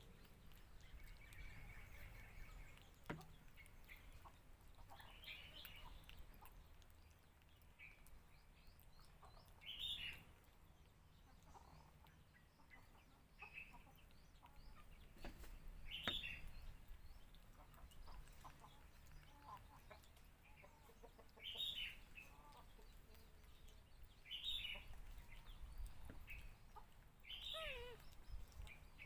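Short, high-pitched animal calls that fall in pitch, one every few seconds, over a low, quiet background. The last call, near the end, slides down furthest.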